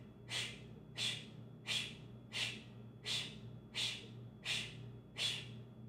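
A woman's short, forceful 'shh' exhales through pursed lips, eight in a row at about one and a half a second: Pilates 'birthday candle' breaths, each puff drawing the abs in.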